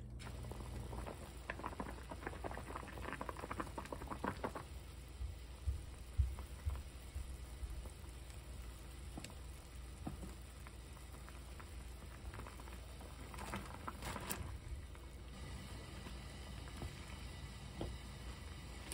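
A pot of radish and kelp broth boiling steadily with a bubbling, pattering sound. Scattered light clicks and a few knocks come through, mostly early on, from wooden chopsticks and ingredients going into the pot.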